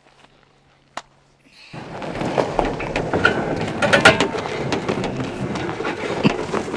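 Loud rustling and scraping with many sharp knocks, starting abruptly about two seconds in. Before it there is only a faint steady hum and a single click.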